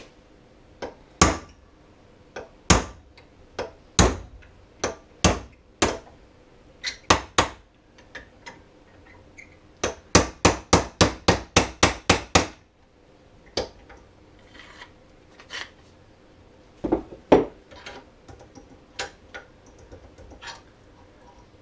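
Hammer blows on a steel punch, driving a roller pin out of an Arctic Cat reverse-cam roller secondary clutch held in a vise. Single strikes come about a second apart, then a quick run of about ten blows midway, then a few lighter taps.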